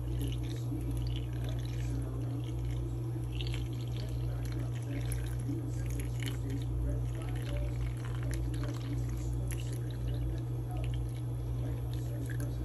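Cooled brewed coffee pouring in a thin stream from a glass coffee carafe into a silicone ice cube tray, with many small irregular splashes as the cubes fill. A steady low hum runs underneath.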